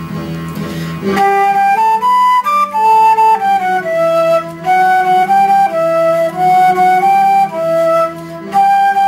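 Concert flute playing a melody of held notes, entering about a second in after a brief low guitar backing.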